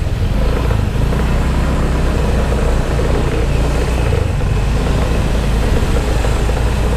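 Motorcycle engine running steadily at low speed in heavy traffic, over the low drone of the surrounding vehicles.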